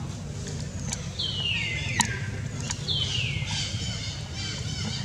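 Animal calls: two high, falling calls, each under a second long, then a quick run of short high chirps. A few sharp clicks sound over a steady low background hum.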